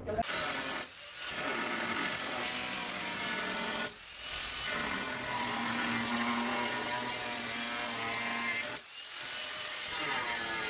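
A power tool running steadily with a rough, noisy sound, stopping briefly three times: about a second in, around four seconds, and near nine seconds.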